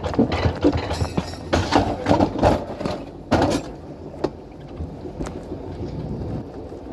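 Alpine coaster sled running down its metal track: a continuous rumble and rattle with irregular clacks and knocks from the wheels on the rails. The knocks come thickest in the first few seconds, and after about four seconds it settles into a steadier, quieter rumble.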